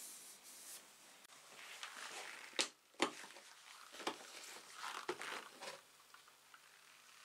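Cloth rubbing over metal, then two sharp plastic clicks less than half a second apart and plastic scraping and rustling as a clear plastic storage box's clip-on lid is unlatched and lifted.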